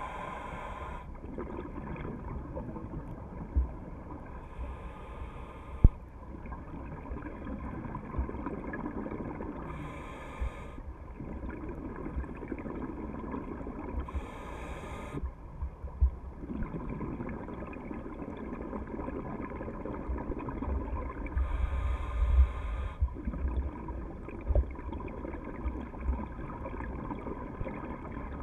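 Scuba diver breathing through a regulator underwater: a short hiss about every four to six seconds, with bubbling gurgles of the exhaled air between them, plus a few small sharp knocks.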